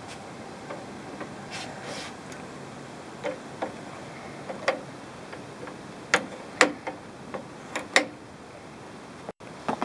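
Control knob of a Coleman RoadTrip portable propane grill being turned and handled: a string of irregular sharp plastic clicks, loudest in the second half, over a steady hiss.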